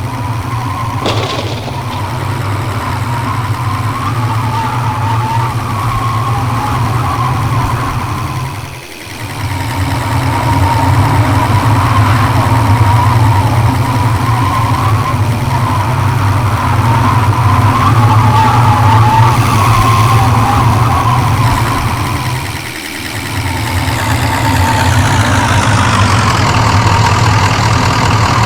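Motor vehicle driving: steady engine and road noise that dips briefly twice, about a third of the way in and again about four-fifths of the way in.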